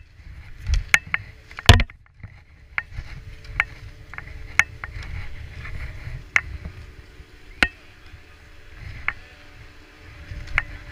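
Ski poles and skis clacking and knocking in sharp, irregular clicks, roughly one a second, with the hardest knock about two seconds in. Underneath are a low rumble and a faint steady hum from the chairlift machinery.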